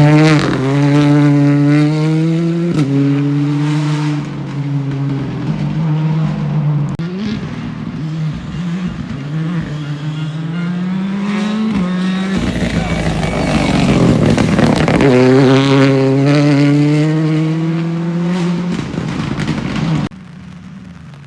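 Rally car engine at full throttle, climbing in pitch and dropping back at each gear change, with a spell of rougher, noisier sound midway. The sound cuts off abruptly near the end.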